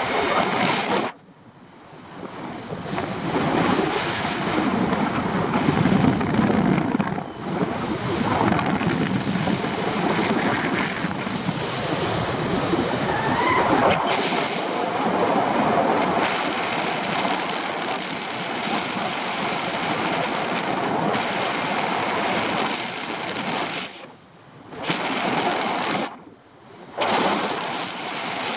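Airflow rushing over the microphone of a paraglider's harness-mounted camera in flight, a gusty wind noise that swells and fades, dropping away briefly about a second in and twice near the end.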